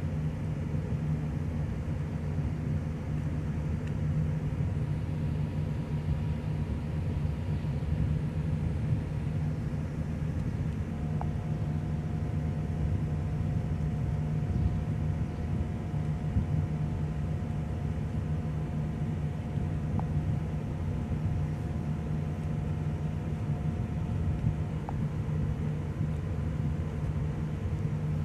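Steady low rumble of ship engines, a deep droning hum with no breaks. A faint thin whine holds above it for about a quarter of a minute through the middle.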